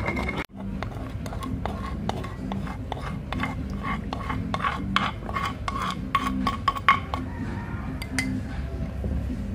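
Repeated clinks and scrapes of utensils against cookware, as in stirring or serving.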